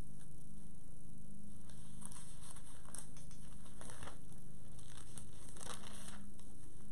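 Paper pages of a Bible rustling several times as they are handled and turned, over a steady low room hum.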